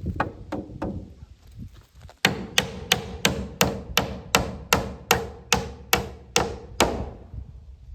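Hammer driving nails into wooden siding boards: a few light taps to start, then a steady run of about thirteen hard blows, roughly three a second, each with a short ring.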